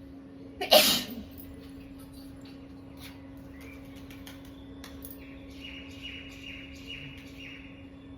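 One loud, short human sneeze about a second in. Birds chirp in the background, with a run of about five short falling chirps later on, over a steady low hum.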